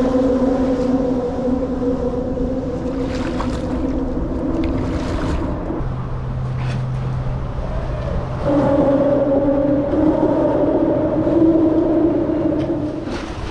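Steady mechanical hum from passing vehicles, holding one pitch pair, dropping to a lower tone about six seconds in, and taking up a new, higher pair about two seconds later.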